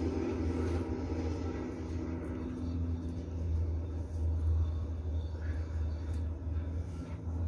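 A steady low hum, with a few faint short clicks over it.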